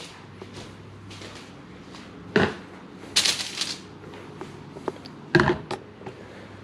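Household handling noises: a sharp knock about two and a half seconds in, a short rustling hiss just after, and a second knock near the end, over a low steady hum.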